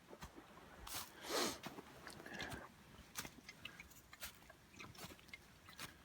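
Footsteps crunching and snapping through fallen twigs and leaf litter, a scatter of irregular light cracks, with a louder rustle about a second and a half in.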